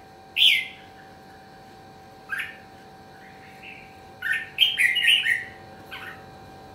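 Red-whiskered bulbul singing short, bright whistled phrases, with a quick run of several phrases about four to five seconds in.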